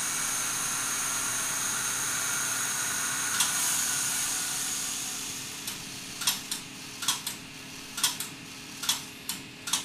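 Reel-to-reel tape machine running with a steady whir and a high whine, which drops away after about five seconds. A string of sharp clicks follows, mostly in pairs about a second apart.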